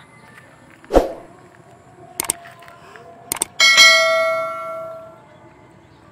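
Subscribe-button sound effect: a thud, two quick clicks, then a bell ding that rings out and fades over about a second and a half.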